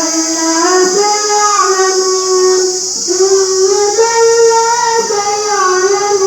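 A young girl's voice reciting the Quran in a melodic chanting style, holding long, wavering notes with ornamented turns, over a steady high hiss.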